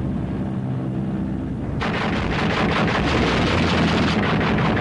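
Piston aircraft engines drone steadily. About two seconds in, a dense, rapid clatter of anti-aircraft gunfire breaks out over them and keeps going.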